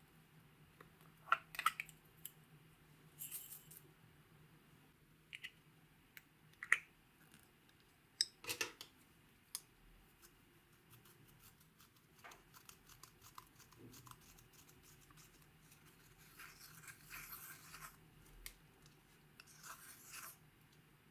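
Small plastic cosmetic cases being handled: a series of sharp clicks and taps from lids and cases in the first half, then the scratching of a plastic tool scraping pressed eyeshadow out of its pan, in two stretches near the end.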